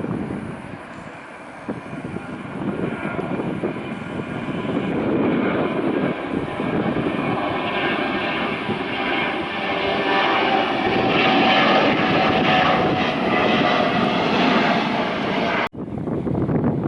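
Jet airliner engines running loud and close, building up over the first few seconds and holding, with a steady whine over the rumble. It cuts off suddenly near the end, leaving wind noise on the microphone.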